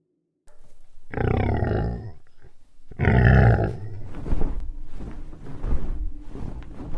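Dinosaur roar sound effect: two loud roars falling in pitch, one about a second in and one at three seconds, followed by lower, quieter calls.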